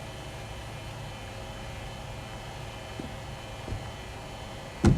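Cricket bowling machine running with a steady hum carrying several even tones, with a couple of faint ticks. A loud, sharp knock comes right at the end.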